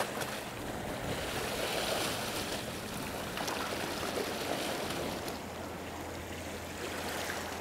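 Sea water washing and sloshing against the rocks at the water's edge, a steady rushing noise with no distinct strokes.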